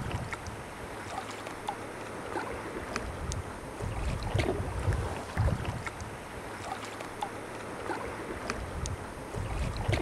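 Sea kayak paddling: paddle blades dipping and splashing, water dripping, and wind gusting on the microphone.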